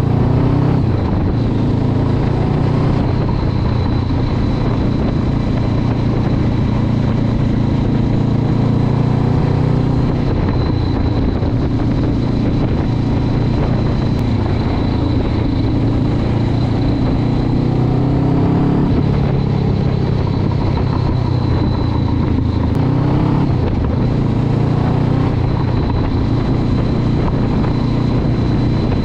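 Honda CB500X's 471 cc parallel-twin engine running as the motorcycle is ridden, its pitch rising and falling with throttle and gear changes.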